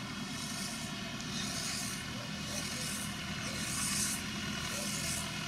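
Farm tractor's diesel engine running steadily as it drives across a field, with a recurring high hiss every half second or so.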